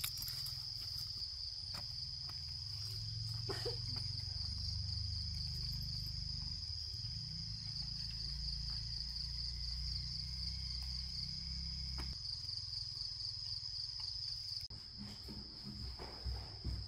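Crickets chirping in a continuous high trill. A low rumble runs underneath and stops about twelve seconds in, and a few light knocks come near the end.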